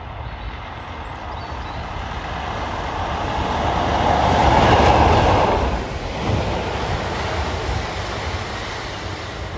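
Train passing the lineside, its rumble and wheel noise swelling to a peak about halfway through, dropping off sharply, then trailing away.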